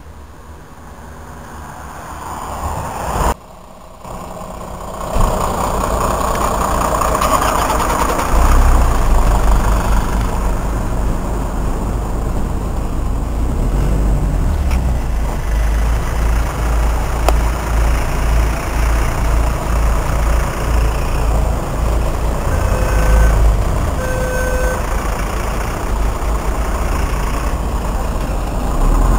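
Fire engine driving past, its noise swelling over the first few seconds. Then a fire engine's diesel engine runs close by with a steady heavy low rumble, and two short beeps sound about two-thirds of the way through.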